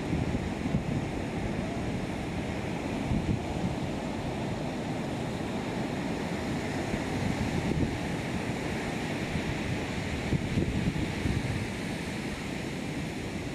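Rough sea surf breaking on a sandy beach, a continuous wash of waves, with wind buffeting the microphone.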